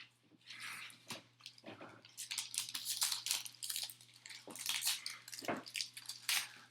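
Foil wrapper of a 2018 Score football card pack crinkling and tearing as it is opened, in a run of short crackly rustles, with cards being handled.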